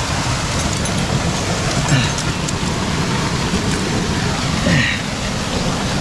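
Steady rushing of a 40 m waterfall heard from right beside the falls, with water running down the wet rock face.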